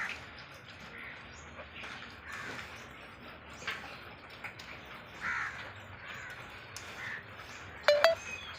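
Short animal calls repeated every second or two, with one louder, sharper call near the end.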